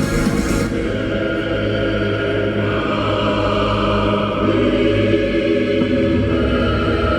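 Live pop song played loudly through an arena sound system: a passage of held, choir-like chords with no clear lead line.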